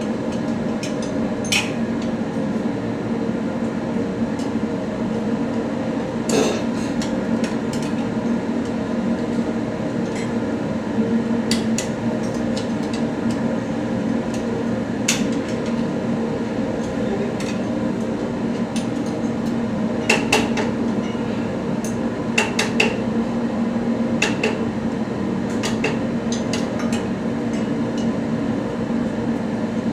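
Scattered sharp metal knocks and clinks of hand tools and parts being handled, some in quick clusters, over a steady low machine hum.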